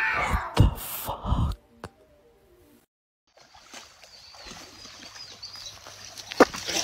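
A sudden loud cry falling in pitch, with two heavy thumps. Then, after a gap, a creek's running water hisses steadily, with a few faint high chirps and a sharp click near the end.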